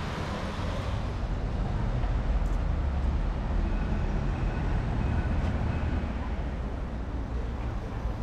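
Road traffic on a city street: a steady low rumble of passing vehicles that swells a couple of seconds in and eases toward the end.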